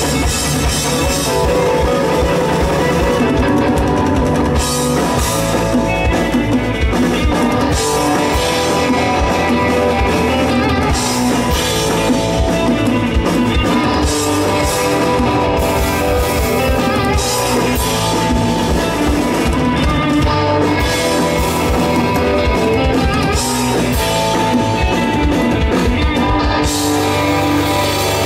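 Live psychedelic fuzz rock from a band: distorted electric guitars, bass guitar and a drum kit with busy cymbals playing loudly. The drumming thins out near the end, leaving sustained guitar and bass.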